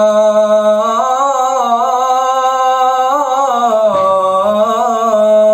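A young man's solo voice calling the adhan, holding one long melismatic vowel without a break. A steady held note gives way about a second in to wavering ornamental turns, which settle back onto a steady note near the end.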